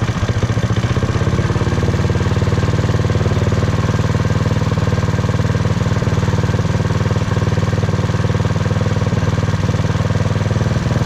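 Predator single-cylinder small engine in a Motovox minibike idling steadily just after starting, with even firing pulses. It is being run in on a freshly honed cylinder so the new rings can break in.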